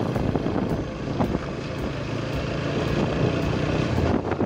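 Motorcycle engine running steadily at low road speed, with wind noise on the microphone.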